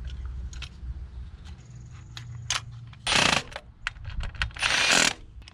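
Metal hand tools clinking and clicking in an engine bay, with two short loud rasping bursts about three seconds in and again near the end.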